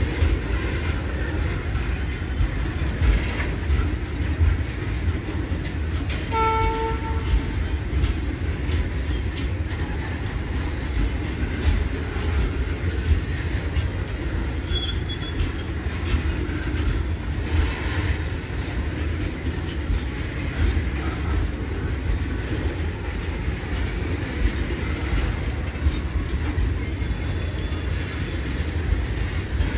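A goods train of BTPN tank wagons rolls past with a steady low rumble and the clatter of wheels knocking over rail joints. About six seconds in there is a short train horn blast, under a second long.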